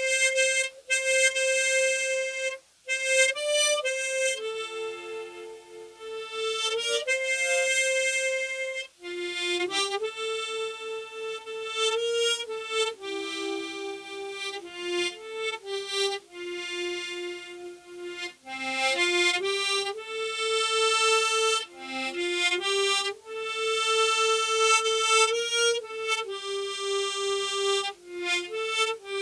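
Solo harmonica playing a slow melody unaccompanied, held notes with short breaks between phrases.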